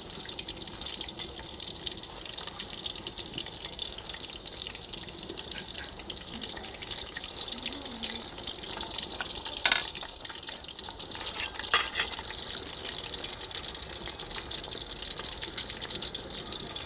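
Masala-coated fish pieces deep-frying in hot oil in an aluminium wok: a steady crackling sizzle. Two sharp clicks come through, about ten and twelve seconds in.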